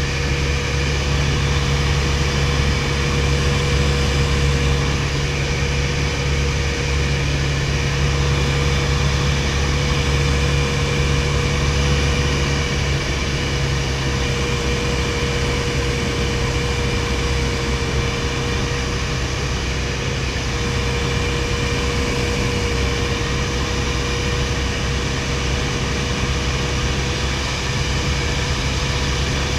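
1961 Piper Colt's four-cylinder Lycoming O-235 engine and propeller running steadily in flight, heard inside the cabin: a loud, even drone with a constant whine on top.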